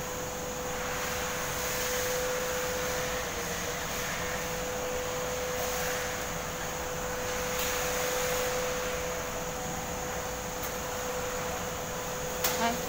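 Steady room hum and hiss of air conditioning or ventilation, with a constant mid-pitched tone running through it. A short click sounds near the end.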